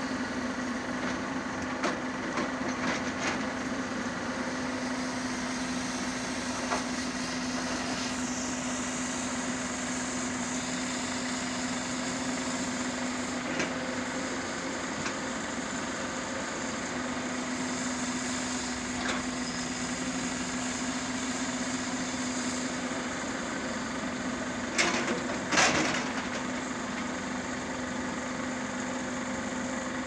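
JCB 220 tracked excavator's diesel engine running steadily as the machine digs soil. A few sharp knocks are heard early on and in the middle, and two louder knocks come close together near the end.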